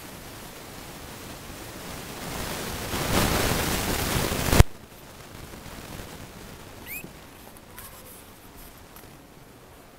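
Rustling rush of noise from the camera rubbing against puppy fur and blanket, which grows louder and cuts off abruptly with a click about halfway through. About seven seconds in, a newborn Scottish terrier puppy gives one short, high squeak.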